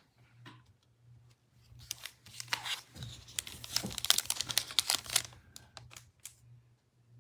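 Foil trading-card pack wrapper crinkling and tearing, a dense run of crackles and rustles in the middle few seconds, with a few scattered handling clicks around it.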